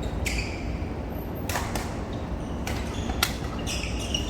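Badminton rackets striking a goose-feather shuttlecock in a rally: a series of sharp, irregular hits over a steady low background hum.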